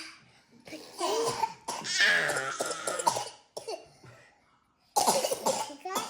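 Toddlers coughing on purpose as a game: forced, voiced coughs in repeated bursts, with a short lull before a loud burst near the end.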